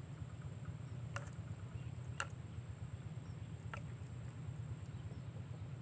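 Three short high chirps, spaced about a second or so apart, over a steady low rumble of outdoor background noise.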